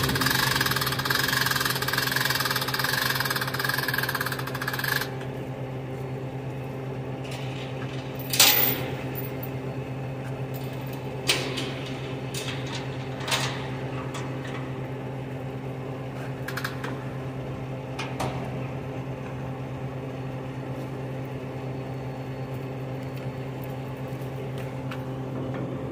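Freightliner roll-off truck's diesel engine idling steadily, with a higher hum over it that cuts out about five seconds in. A few sharp metal clanks follow as the steel winch cable and hooks are handled at the container.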